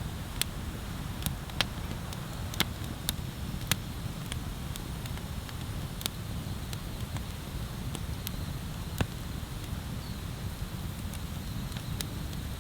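Wood fire crackling: irregular sharp pops, about one a second, over a steady low rumble.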